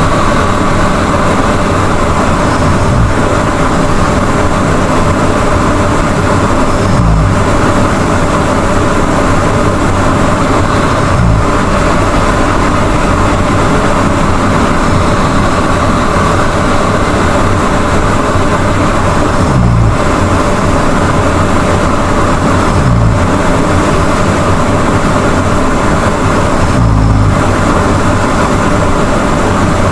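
A person snoring loudly, with a low, rattling snore about every four seconds over a steady hiss of breathing, and a longer gap in the middle.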